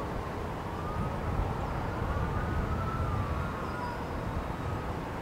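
Emergency-vehicle siren wailing, its pitch slowly rising and falling, over a steady low rumble.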